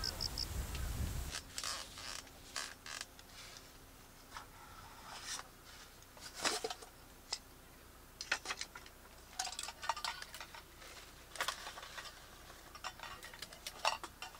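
For about the first second, outdoor wind rumble. Then metal camping cookware is handled: a nested pot set is unpacked, with scattered clinks, clicks and light scrapes from the lid, folding handles and nested cups.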